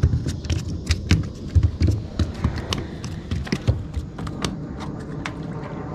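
Irregular sharp taps and knocks, several a second, over a low rumble: handling and movement noise on a wooden dock.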